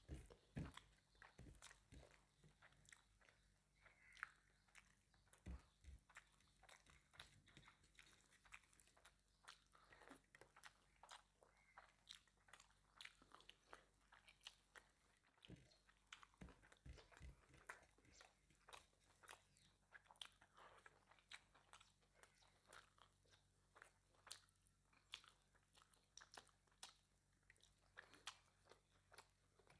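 Quiet chewing and wet mouth sounds of a person eating mutton curry with rice, many small clicks and smacks in quick, irregular succession.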